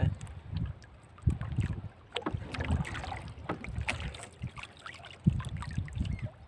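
Water lapping and slapping against the hull of a small boat, with wind buffeting the microphone and scattered knocks and clicks.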